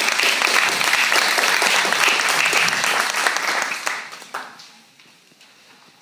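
Audience applauding, many hands clapping, dying away about four seconds in.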